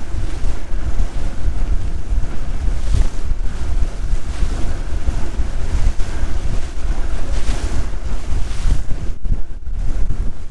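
Strong wind buffeting the microphone, a loud, gusting low rumble with a hiss above it.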